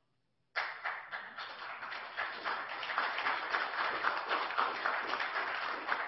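Audience applauding, a dense patter of many hands clapping that starts suddenly about half a second in and keeps going steadily.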